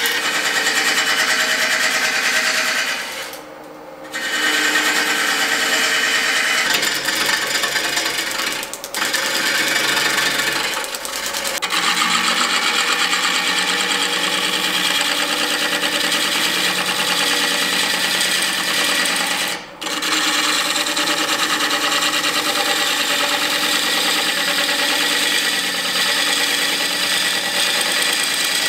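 A Record Power wood lathe spinning a very large wooden blank while a gouge cuts across its face: a continuous hissing cut over the running lathe, broken by a few short dips.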